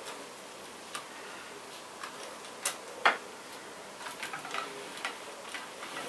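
Small hard clicks and taps of an OO gauge model steam locomotive being handled and set onto the rails: a few separate clicks, the loudest about three seconds in, then a quick run of small ticks near the end.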